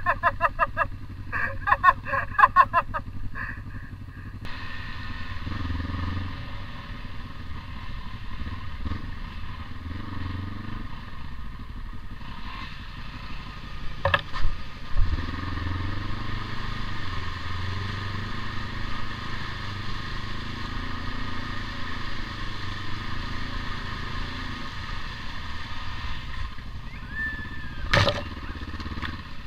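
Kawasaki KLE500 parallel-twin engine running under way, its note rising and falling with the throttle. A sharp splash through standing water comes about halfway, and a sharp crack near the end.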